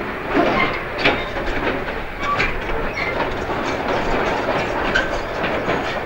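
Crawler bulldozer driving down off a lowboy trailer: its diesel engine running under load, with irregular knocks and clanks from its steel tracks.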